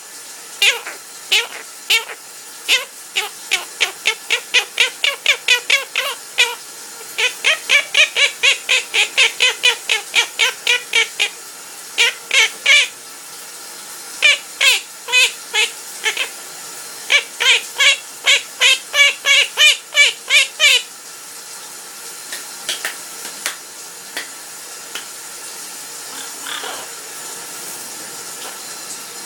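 Pet parrot singing: several runs of rapid repeated notes, about four a second, stopping about two-thirds of the way through. After that only a few soft calls are heard over a steady hiss.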